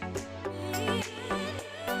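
Background music: a song with a steady beat, bass line and a wavering vocal or lead melody.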